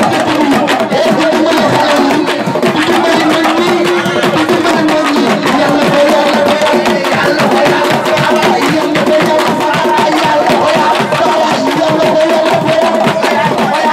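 Music with fast hand-drum percussion under long held melodic notes, going on steadily.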